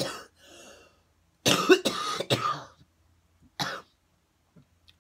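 A woman coughing, a short cough at first, then a run of several coughs about a second and a half in and one more a second later. It is the cough brought on by inhaling a cannabis dab taken too hot.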